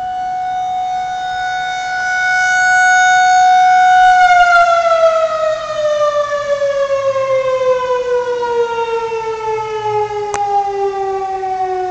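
Civil defense air raid siren sounding for its monthly test: one steady tone that swells louder for about four seconds, then slides slowly and steadily down in pitch.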